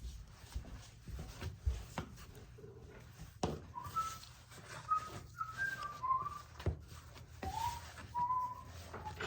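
Whistling: a wandering run of short notes that starts about four seconds in, stepping up and down like a tune. A few sharp knocks sound along with it.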